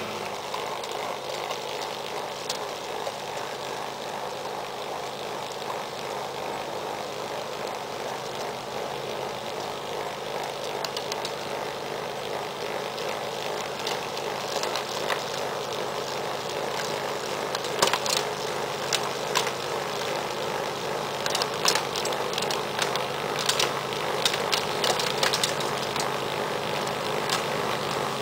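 John Deere X300 lawn tractor running a 44-inch snowblower attachment, with a steady engine and blower drone that grows slightly louder as it approaches. Scattered sharp ticks come through in the second half.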